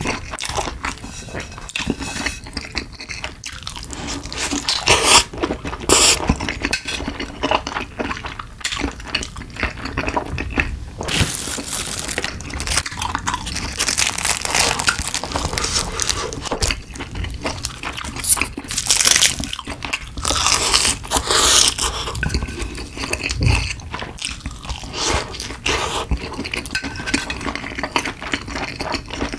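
Close-miked eating sounds: wooden chopsticks clicking and scraping on a plastic lunchbox tray, and crisp crunching and chewing of lunchbox food such as fried cutlet and seasoned laver with rice.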